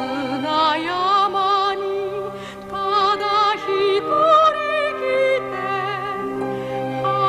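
A woman singing a Japanese song in a classically trained style with wide vibrato, over sustained instrumental accompaniment.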